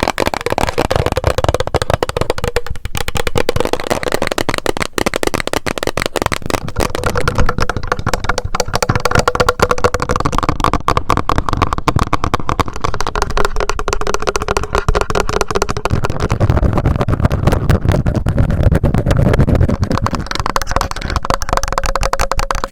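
ASMR trigger sounds close to the microphone: fast, dense tapping and scratching on objects.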